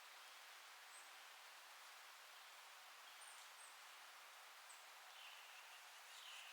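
Faint forest ambience: a steady soft hiss of wind in the trees, with a few faint high bird chirps and a short bird call near the end.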